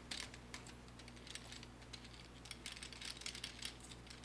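Faint, irregular clicking and light rattling of plastic LEGO Technic parts as the model is handled.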